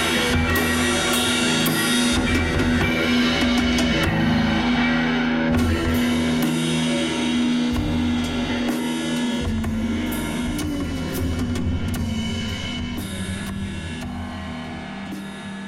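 Rock jam on a drum kit, drums and cymbals struck over held notes, fading out toward the end.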